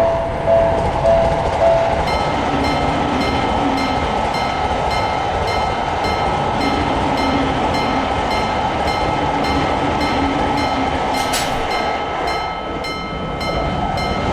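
Railroad crossing warning bell clanging about twice a second, then a train passing through with a steady rumble while a faster, higher repeating ringing sounds over it. The rumble eases off near the end.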